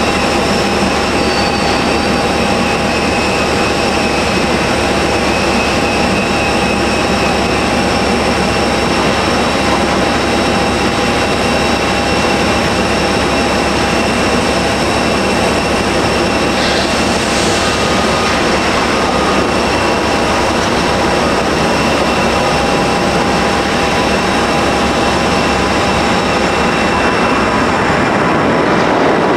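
Boeing 787-9 jet airliner taking off, its twin jet engines at takeoff thrust: a loud, steady rush of jet noise with a high, steady whine over it.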